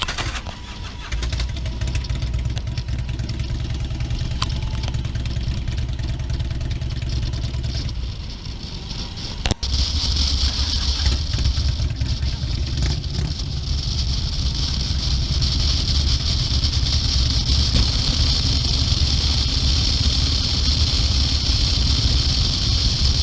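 Motorcycle engine running steadily with a low rumble; about ten seconds in, after a brief dip and a sharp click, it comes back louder with a steady hiss over it.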